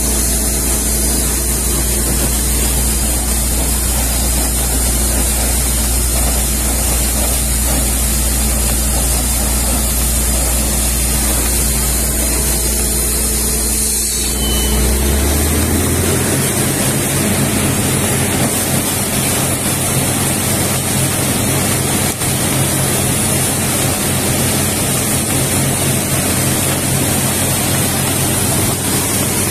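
Water-well drilling rig running as its compressed air blows muddy water and cuttings up out of the borehole around the drill rod, a steady gushing spray over the machine's hum. About halfway through, the engine's low hum steps up in pitch and holds there.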